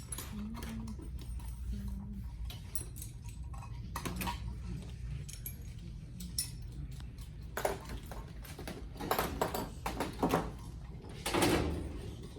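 Scattered light metallic clinks and rattles over a low steady hum, with a louder burst of noise about eleven seconds in.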